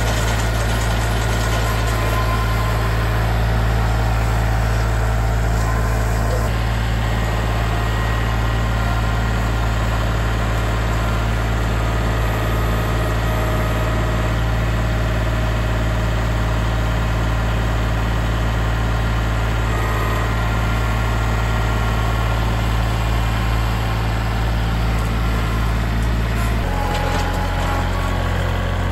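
Kubota L3901 compact tractor's three-cylinder diesel engine running steadily, its note shifting near the end.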